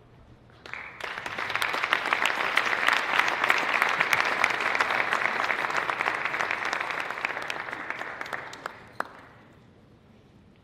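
Audience applauding: clapping starts about a second in, swells quickly, holds steady, and dies away around nine seconds in.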